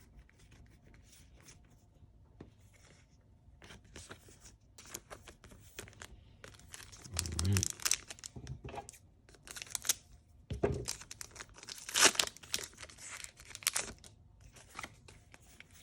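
A Pokémon TCG Battle Styles booster pack's foil wrapper being torn open and crinkled by hand, in a run of irregular sharp rips and crackles that starts a few seconds in and is loudest in the middle.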